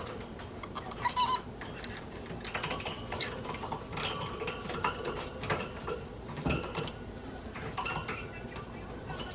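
Small pet parrots, a cockatiel and a budgerigar, making scattered short chirps and sharp clicks, without talking.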